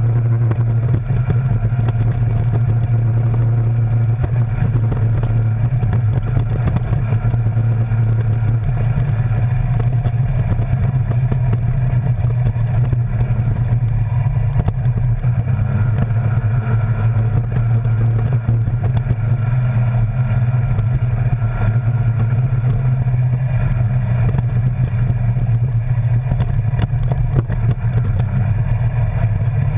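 Arctic Cat Wildcat Sport side-by-side's engine running steadily as it drives along a dirt trail, heard from inside the cab, its pitch rising and dipping slightly.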